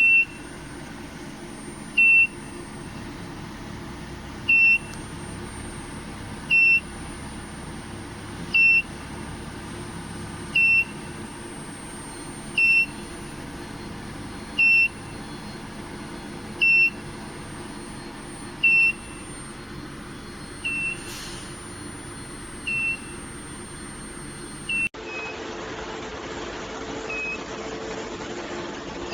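Electronic beeper sounding short high beeps about every two seconds, over a steady electrical hum and a thin high whine; near the end the hum changes and the beeps become fainter.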